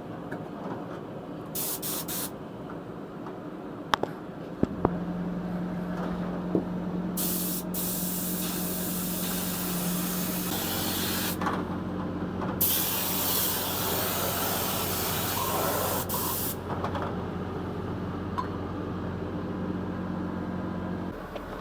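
A motor starts humming steadily about five seconds in. Loud hissing bursts, like a jet of air or spray, come over it twice: briefly around seven seconds and longer from about twelve to sixteen seconds.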